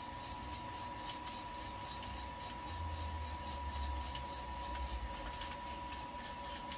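Kaleido M10 Sniper Pro electric coffee roaster running steadily, its motor and fan giving a hum, a hiss and a thin high whine, with a low rumble swelling through the middle. Sparse sharp pops of beans cracking come every second or so: the tail end of first crack.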